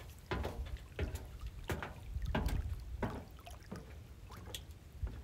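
Footsteps on a floating dock, about one step every two-thirds of a second, over a steady low rumble of water and wind.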